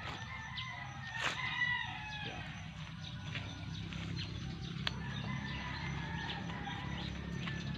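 A rooster crowing once, about a second in, a call of about a second, with a fainter crow later, over a steady low hum.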